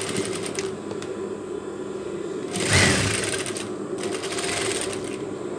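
Sewing machine stitching pompom trim onto a stretch-lace sleeve, running steadily, with a brief louder rustling noise near the middle.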